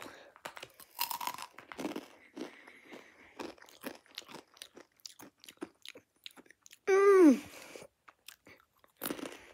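Zombie Takis rolled tortilla chips being bitten and chewed close to the microphone, with many short, sharp crunches. About seven seconds in, a short loud vocal sound falls in pitch.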